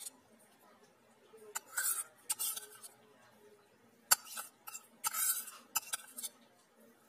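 A metal spoon scraping soft butter out of a small bowl and knocking against the bowls, with several sharp clinks and two longer scrapes.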